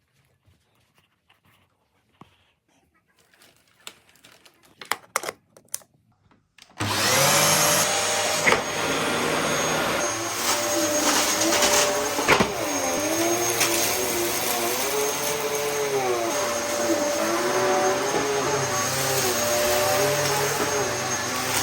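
A few faint clicks and knocks, then a Dyson DC14 upright vacuum cleaner switches on suddenly about seven seconds in and runs steadily: a high motor whine with a lower tone that wavers up and down, and a couple of sharp ticks.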